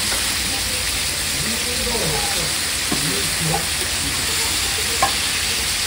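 Pork offal and cabbage sizzling on a hot iron teppan griddle, a steady frying hiss, with one sharp knock about five seconds in.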